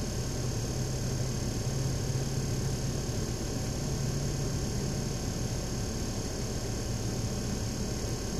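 Automatic car wash running, heard from inside the car's closed cabin: a steady low hum with an even hiss over it.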